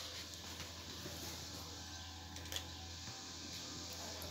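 Quiet room with a steady low hum and a few faint clicks and light scraping as a long ruler is slid along paper and set in place, the clearest click about two and a half seconds in.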